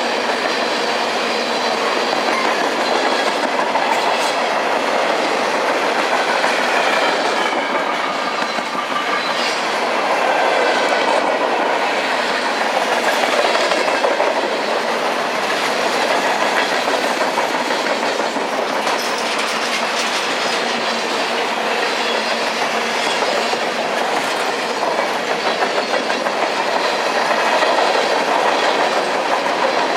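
CN freight train cars rolling past, wheels clacking steadily over the rail joints, with a faint high wheel squeal at times.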